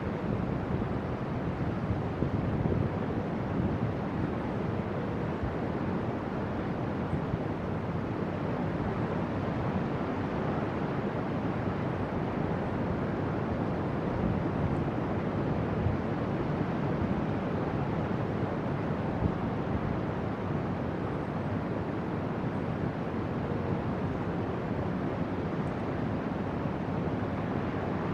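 Steady rushing noise of wind and distant ocean surf, even throughout with no distinct events.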